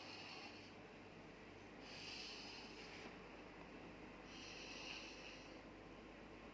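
Snoring in deep sleep: faint, hissy breaths about a second long, repeating about every two and a half seconds.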